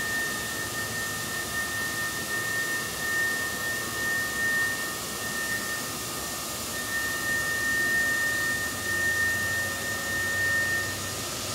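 Tormach CNC lathe facing a large aluminum disc with a carbide insert under flood coolant: a steady hiss of cutting and spray with a thin, high, steady whine that stops near the end.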